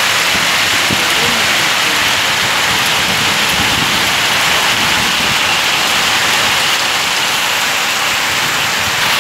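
Heavy hailstorm: hail and rain pelting down in a dense, steady hiss.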